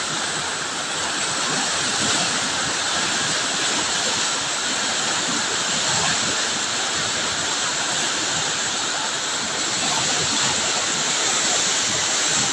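A small river in flood after heavy rain, its fast, muddy water rushing and churning in a loud, steady noise.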